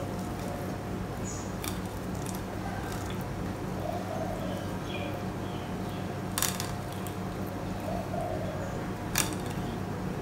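Kitchen knife drawn along a mackerel's rib bones while filleting, giving a few sharp clicks as the blade rides over the bones, the loudest two about six and nine seconds in. The clicking is the 'tuk, tuk' that shows the blade is following the bones correctly. A steady low hum lies underneath.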